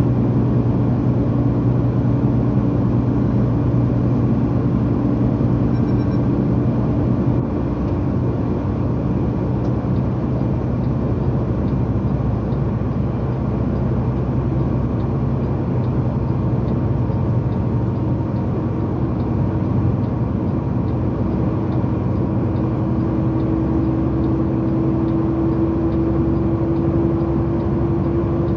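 A vehicle running steadily: a continuous engine hum with road noise. One tone in the hum edges up slightly in pitch over the last few seconds.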